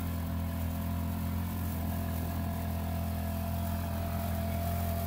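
Backpack power sprayer's motor running steadily at a constant speed, a low even hum with a steady higher tone over it, as it pumps spray out of the lance in a fine mist.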